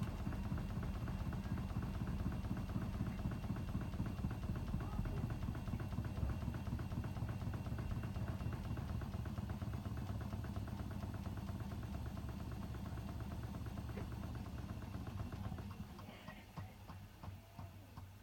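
Hotpoint WMFUG 942 washing machine running on its Cotton standard 60 programme: a steady motor hum with drum noise. About sixteen seconds in it drops off sharply to a quieter low hum.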